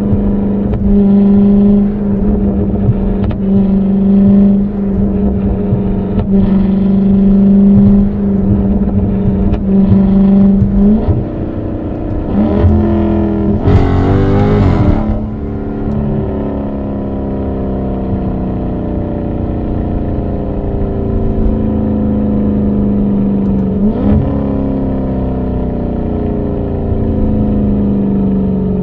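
Dodge Charger Scat Pack's 6.4-litre HEMI V8 exhaust, recorded by a microphone at the exhaust: a steady drone while cruising, a few seconds of revving with rising and falling pitch about halfway through, then a lower note that sinks slowly as the car slows, with a brief rev flick from a gearshift near the end.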